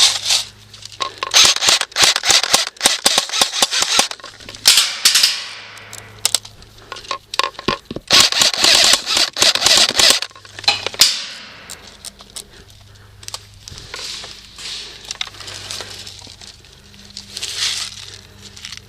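Airsoft guns firing: many sharp shots, coming in dense rapid volleys about a second in and again around eight seconds in, then more scattered shots toward the end.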